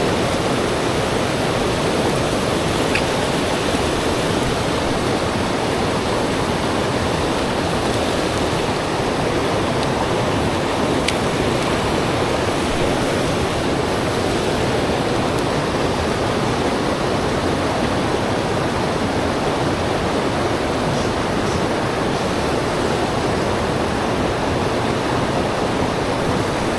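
Rushing river water, a steady, even noise.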